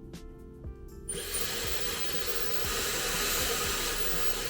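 Dyson handheld hair dryer switched on about a second in and running with a steady rush of air, over background music with a beat.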